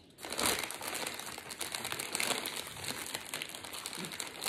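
A crinkly chip bag rustling and crackling without a break as a hand reaches into it and handles it, starting a moment in.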